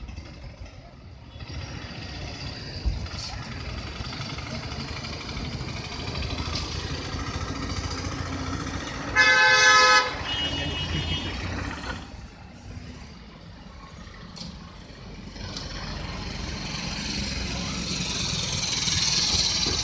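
Street noise of a crowd and motorbikes, with a vehicle horn blaring for about a second near the middle, the loudest sound. A shorter, higher beep follows just after.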